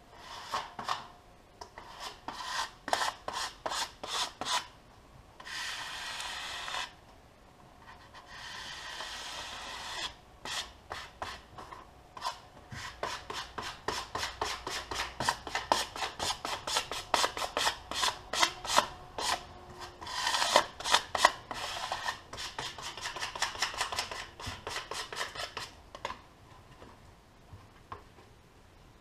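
Rapid rubbing and scraping strokes on vinyl sign material, several a second in long runs, broken by a couple of longer steady rubs and short pauses.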